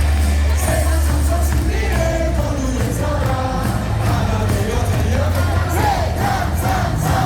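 Loud cheering music in a baseball stadium, with a heavy steady bass and a crowd of fans singing along.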